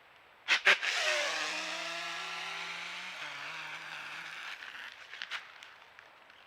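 Whitetail buck's snort-wheeze: two sharp snorts about half a second in, then a long wheezing hiss forced through the nose, with a low tone that drops and then holds, fading out over about three seconds. It is a buck's aggressive dominance call. A few faint crackles of leaves follow near the end.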